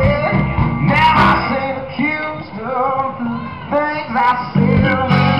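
Live band playing a song on an outdoor stage: a singer's voice over amplified guitars.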